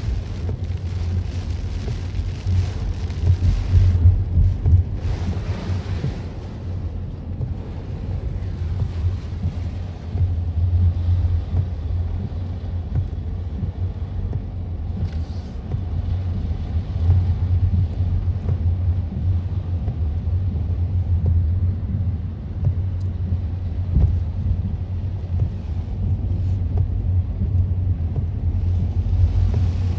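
Cabin noise of a car driving through a tropical storm: a steady low rumble of tyres on the wet road and wind, with the hiss of heavy rain on the car, stronger in the first few seconds.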